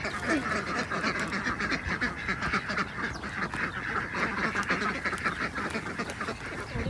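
A flock of poultry calling continuously, many short calls overlapping at once.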